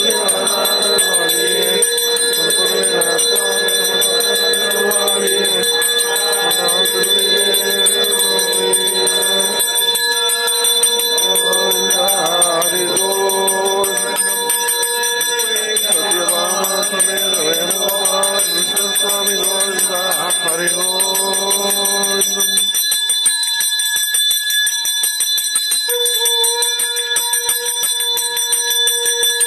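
Temple bell ringing steadily and continuously during an aarti lamp offering, with chanting voices over it for most of the time. The chant stops about three-quarters of the way through, and the bell carries on alone.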